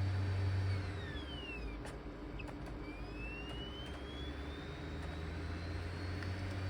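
Laptop CD-ROM drive spinning down with a falling whine, a few clicks, then spinning back up with a slowly rising whine as it reads the install disc again, over a steady hum.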